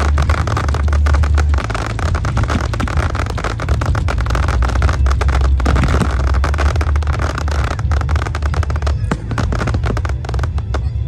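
Fireworks display: a dense, unbroken barrage of crackling and bangs from many shells bursting at once, with crackling white glitter stars among them, over a steady low rumble.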